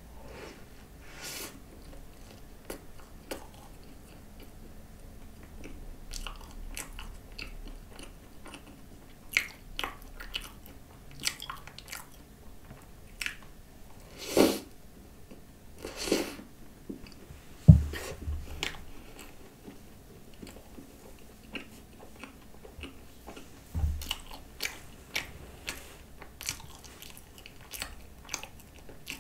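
Close-up eating sounds of a croissant topped with whipped cream: bites and chewing with soft crunches of pastry and many small wet mouth clicks. A few bites stand out louder, and a low thump comes twice, near the middle and later on.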